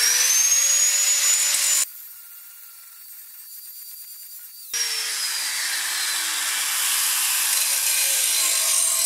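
Electric angle grinder spinning up with a sharply rising whine and grinding the edge of a steel lawn mower blade held in a vise. The sound drops off suddenly about two seconds in, comes back loud nearly five seconds in, and the motor's whine then falls slowly as it winds down.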